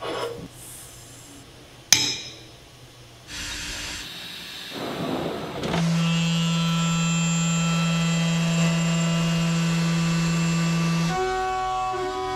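Two sharp knocks in the first couple of seconds, then, from about six seconds in, a DN Solutions SVM 4100 CNC vertical mill cutting a metal block: a loud, steady pitched whine that changes to a different set of tones about a second before the end.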